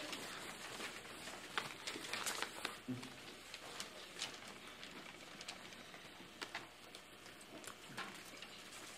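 Quiet room noise: scattered soft clicks and rustles over a steady hiss, with a brief low murmur of a voice about three seconds in.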